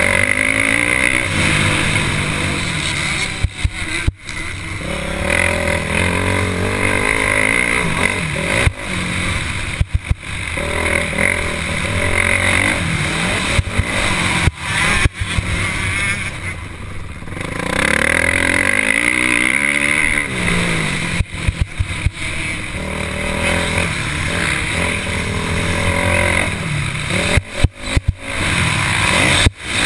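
Motocross bike engine running hard, its pitch rising and falling again and again as it revs up and backs off, heard through an onboard camera's microphone. The sound cuts out briefly several times.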